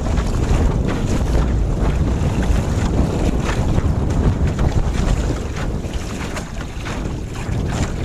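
Strong wind buffeting the microphone of a phone mounted on a small sailboat's gunwale, a heavy steady rumble, with water rushing past and slapping against the hull in many short splashes.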